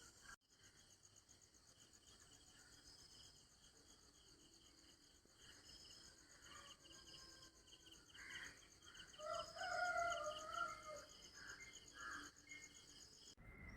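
Insects chirring steadily in a fast, even pulse, with a rooster crowing once about nine seconds in, the loudest sound.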